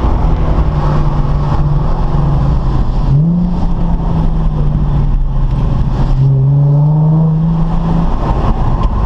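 Nissan 370Z's V6 engine heard from on board while lapping a circuit. The revs jump up about three seconds in and ease off through a tight corner, then drop and climb steadily again from about six seconds in as the car accelerates out.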